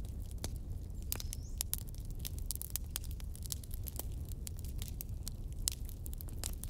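Fire crackling: frequent sharp, irregular pops and snaps over a steady low rumble of burning, with a brief thin rising whistle about a second in.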